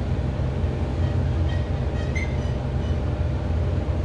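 Dover traction elevator car travelling downward, with a steady low rumble of ride noise and a few faint, brief high squeaks about halfway through.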